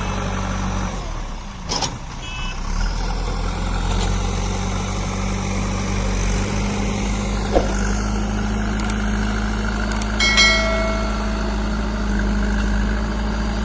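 JCB 3DX backhoe loader's diesel engine running steadily under work, dipping briefly early on, with a few sharp knocks and a short high-pitched tone about ten seconds in.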